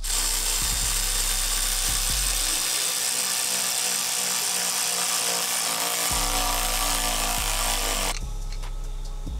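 Cordless electric ratchet driving a bolt through a socket on an extension. It runs in one long, steady whir and stops abruptly about eight seconds in.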